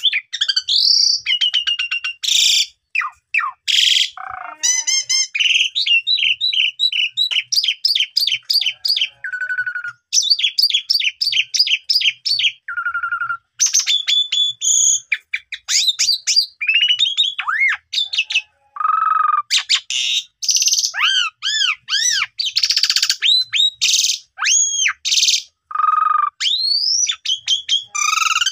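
Asian pied starling singing a long, loud, varied song with only brief pauses. It strings together rapid trills, arching and rising whistles, and harsh raspy notes.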